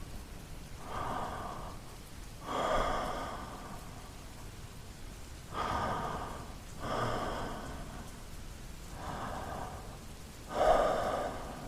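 A man breathing slowly and deeply in and out into a close microphone, about six audible breaths, with a faint steady patter of rain behind.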